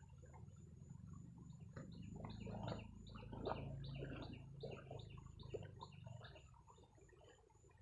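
Muddy paddy water sloshing and swishing as a long levelling board is dragged through a flooded rice field. From about two seconds in until near the end, a rapid series of short high chirps repeats about three times a second.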